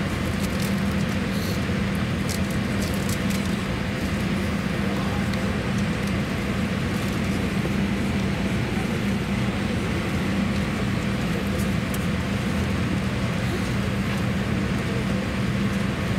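Steady cabin noise inside a Boeing 787-8 airliner as it is pushed back from the gate: an even rush of air with a constant low hum, and a few faint clicks in the first few seconds.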